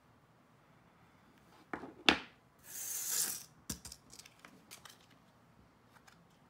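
Two sharp knocks about two seconds in, the second louder, as hard tools are set on a tabletop. Then about a second of dry scraping from a piece of coarse sandpaper being handled or rubbed, then a few light clicks.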